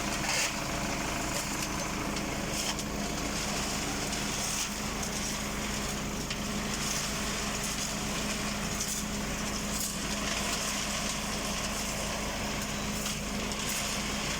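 Tractor engine running steadily, driving a PTO-mounted transit concrete mixer, with a constant hum.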